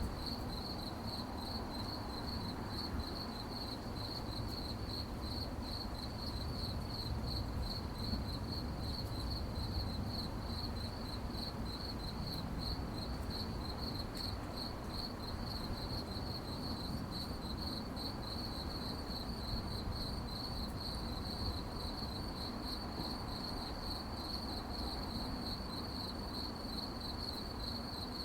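Crickets chirping at night in a steady, evenly pulsing high-pitched trill, over a low background rumble.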